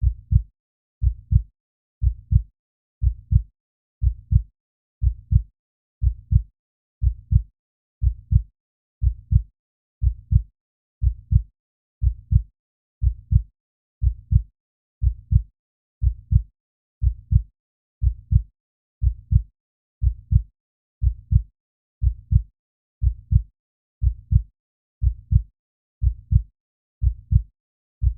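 Heartbeat sound effect: a steady resting heartbeat, each beat a low double thump (lub-dub), about one beat a second.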